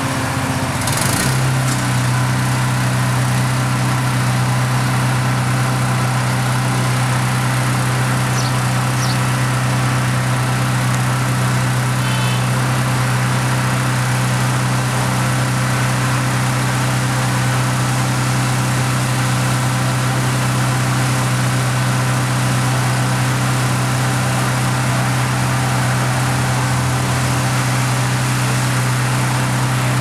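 Concrete mixer truck's diesel engine running steadily to turn the drum while it discharges concrete down the chute. The engine note steps up about a second in, then holds a steady drone.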